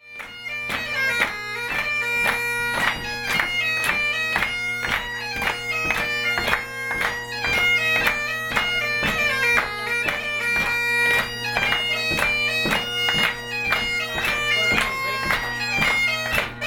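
Bagpipes playing a tune: quick-moving melody notes over a steady drone.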